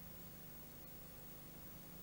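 Near silence: a faint steady electrical hum with hiss underneath, the noise floor of a silent video-tape transfer with no soundtrack.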